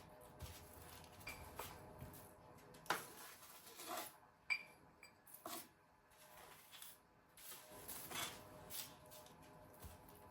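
Quiet kitchen handling sounds: scattered soft knocks and clicks of utensils and dishes being set down and moved, with a short ringing clink about four and a half seconds in.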